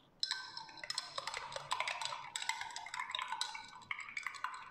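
Long metal bar spoon stirring cane sugar into milk in a tall drinking glass, clinking quickly and unevenly against the glass. Each clink leaves a short glassy ring. The clinking starts a moment in.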